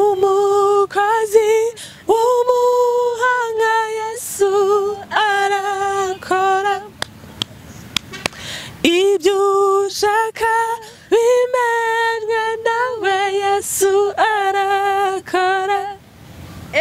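A woman's voice singing an unaccompanied gospel praise song, held notes with vibrato in short phrases, breaking off for about two seconds midway before the singing resumes.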